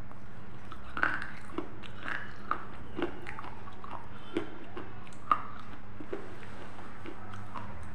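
A person chewing crunchy food close to a lapel microphone, with irregular crisp crunches about half a second to a second apart; the sharpest comes about five seconds in. A steady low hum runs underneath.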